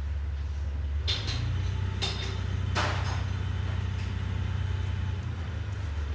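Wheel loader's engine running with a steady low drone that shifts pitch about a second in and again near the end, with three sharp knocks in the first three seconds.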